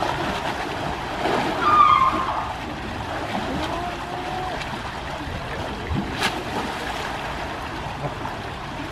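Pool water sloshing and splashing as Asian elephants bathe and roll in it, under a steady wash of noise. A brief high-pitched call about two seconds in is the loudest moment.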